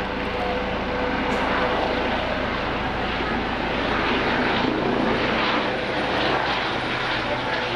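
Steady rushing aircraft engine noise, swelling slightly in the middle.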